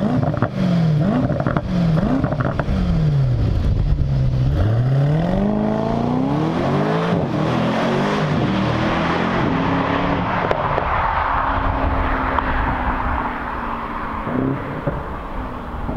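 Mercedes-AMG GT 63 S 4-door's twin-turbo 4.0-litre V8 through a valved sport exhaust: several quick throttle blips, then a long rev rising over a couple of seconds as the car pulls away, settling into a steadier drone that eases off near the end.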